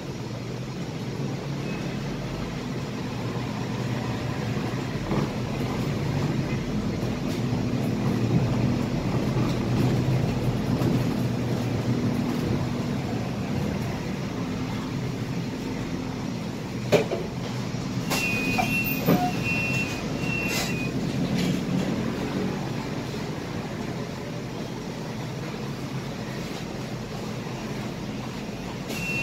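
Cab noise of a Scania K320IA articulated bus under way: a steady engine and road rumble heard from the driver's seat. A few knocks and a short run of high beeps come about two-thirds of the way through.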